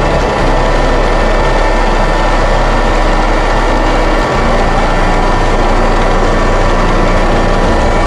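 Robot vacuum cleaner running: a loud, steady whir of its motor and brushes with a constant hum.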